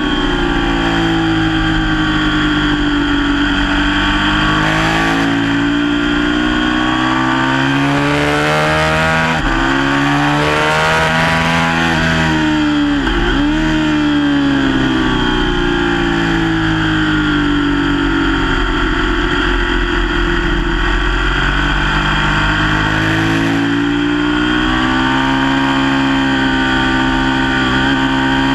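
Sport motorcycle engine at racing speed, heard onboard: revs climb hard under acceleration, then fall away as the bike brakes and downshifts for corners, several times over, with a quick drop and pick-up about halfway through.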